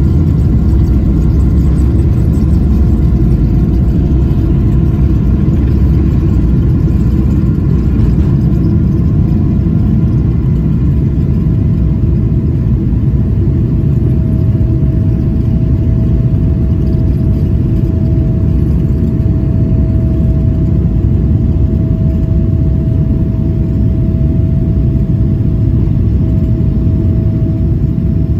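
Boeing 777-300ER's GE90-115B turbofans at takeoff thrust, heard from the cabin over the wing: a loud, steady roar with a heavy low rumble through the takeoff roll, liftoff and initial climb. A steady whine-like tone sits over it from about halfway on.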